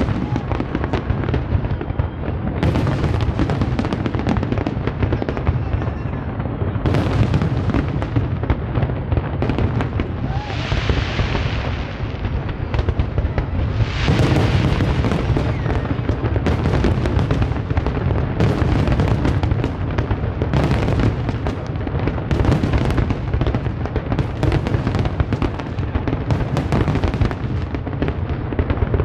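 Fireworks display: aerial shells bursting one after another in quick succession, booms with crackle between them, and a stretch of dense hissing crackle about ten seconds in.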